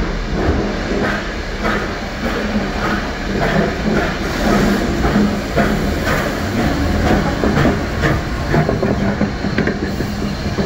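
Steam locomotive 3801, a NSW C38 class Pacific, rolling slowly past, with a regular beat of hissing steam a little under two a second over a steady low hum.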